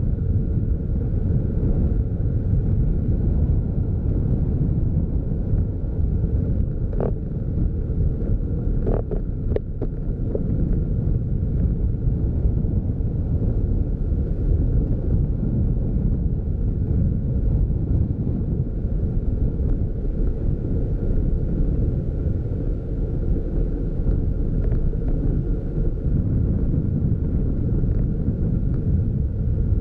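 Steady low rumble of a car driving along a winding road, with wind buffeting the microphone of the vehicle-mounted camera. A few short sharp clicks come about seven to ten seconds in.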